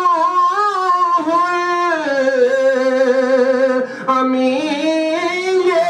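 A man singing a naat, holding long ornamented notes with a wavering pitch, with a short break for breath about four seconds in.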